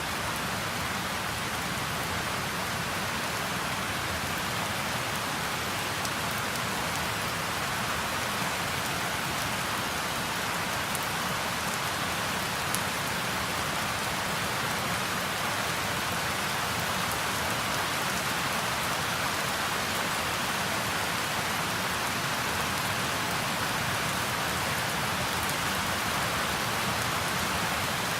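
Steady tropical rain falling, slowly growing heavier, with ocean waves breaking close by underneath.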